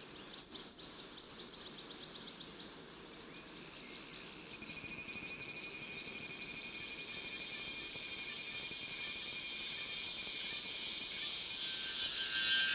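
A few short bird chirps, then from about four seconds in a steady, shrill, high-pitched buzz of cicadas made of several even tones. Near the end a second, pulsing insect call joins it.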